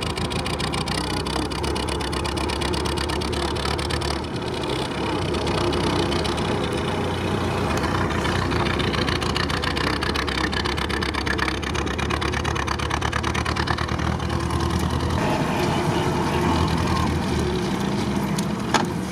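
Willys jeep's four-cylinder engine running steadily under way on only three cylinders, one cylinder dead, heard from inside the canvas-topped cab.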